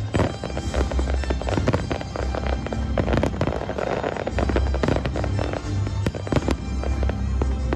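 Aerial fireworks bursting in rapid succession, a dense string of bangs and crackles throughout, over music with a steady low bass.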